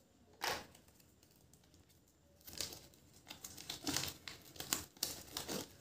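Kinder Joy toy packaging crinkling as it is unwrapped by hand: one short rustle about half a second in, then continuous crinkling of the wrapper and folded paper leaflet from about two and a half seconds on.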